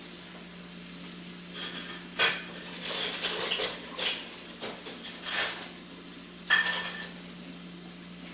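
Metal kitchen utensils and dishes clattering and clinking in an irregular string of knocks, starting about a second and a half in. One sharp metallic clink near the end rings briefly.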